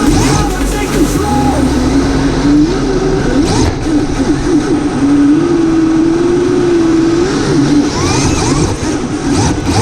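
Electric motor of a radio-controlled drift car whining, its pitch rising and falling over and over with the throttle.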